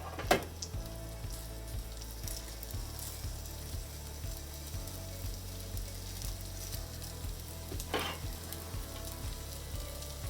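Skewered chicken meatballs frying in hot oil in a frying pan, with a steady sizzle and crackle. Two short sharp knocks stand out, one just after the start and one about 8 seconds in.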